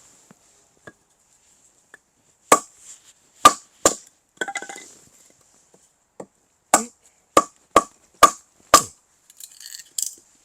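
Firewood being split and handled with an axe: a series of sharp wooden knocks and cracks, with a short rattle of pieces partway through and then five quick knocks about half a second apart.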